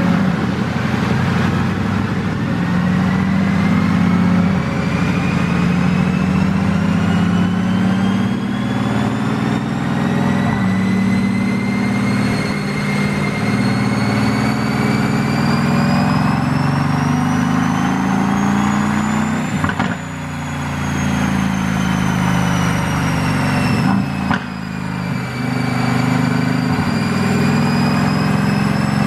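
Mercedes-AMG GT S twin-turbo 4.0-litre V8 running under load on a chassis dyno, with a high whine climbing steadily in pitch as speed builds. The sound breaks briefly about two-thirds of the way in and again a few seconds later, then the whine climbs again.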